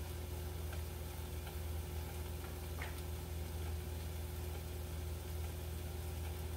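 Steady low hum with a light hiss and a few faint scattered ticks and pops from a glass-lidded frying pan of beef and broccoli cooking on an electric coil stove.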